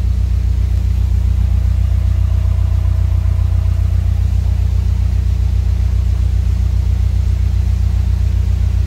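Narrowboat's diesel engine idling: a loud, steady low hum.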